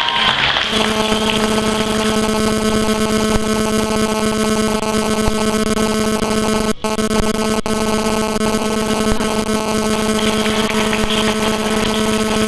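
Loud, steady electrical buzz from the sound system, one low pitch with a row of overtones, starting about a second in and cutting out for a moment about halfway through.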